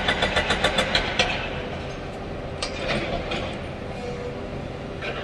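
Sany excavator working: its diesel engine runs with a rapid run of metallic clanks, about six or seven a second, for the first second or so. Then comes a steadier running noise with a few scattered clinks.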